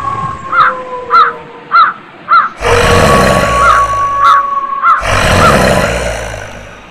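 Horror sound effect of a bird cawing like a crow, a short harsh call about every half second, eight or so in all, over a steady eerie drone tone. A loud rushing noise swells in twice, about two and a half seconds in and again around five seconds.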